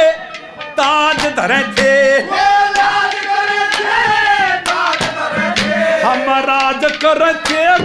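Haryanvi ragni folk music: a wavering, ornamented melody line carried over frequent sharp drum strokes.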